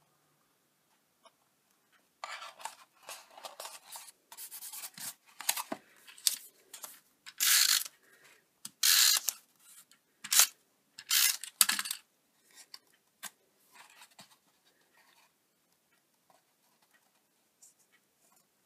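Adhesive tape runner (a Stampin' Up! Snail) drawn along card stock in a series of short rasping strokes, the loudest in the middle, laying glue tape on paper panels. Toward the end, fainter rubbing and rustling of paper as a panel is pressed onto a card box.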